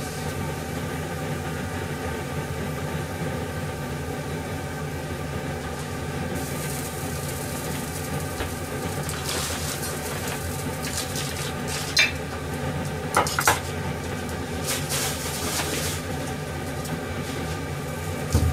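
Cooking oil heating in an empty nonstick wok, over a steady hum. A faint sizzle sets in after about six seconds and comes and goes. A few sharp clicks come about two-thirds of the way through and again near the end.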